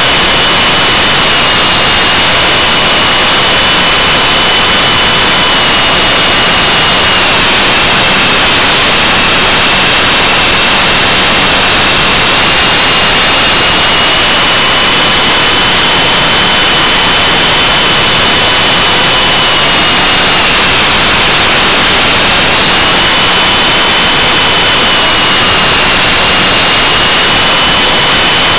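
Electric Blade 400 RC helicopter in flight, heard from its onboard camera: a loud, steady rush of rotor and motor noise with a high motor whine that sags briefly twice, about a quarter and three quarters of the way through.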